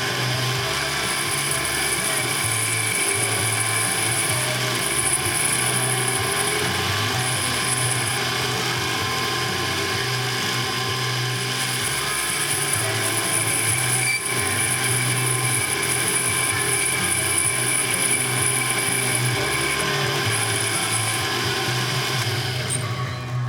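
Geared metalworking machine tool running steadily, with a steady whine and a high ringing tone that comes and goes. It winds down just before the end.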